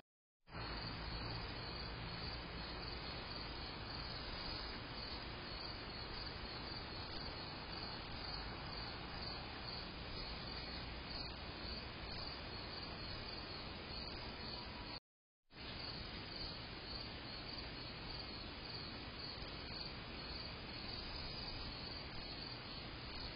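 Crickets chirping steadily and faintly at night over the steady hiss of a Blink XT2 security camera's microphone. The sound cuts out briefly twice, once right at the start and again about fifteen seconds in.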